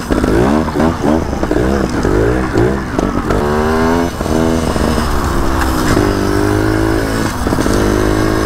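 Two-stroke trials motorcycle engine being ridden, revving up and dropping back in repeated quick throttle blips, with one longer rise about three seconds in, a steadier note midway and more blips near the end.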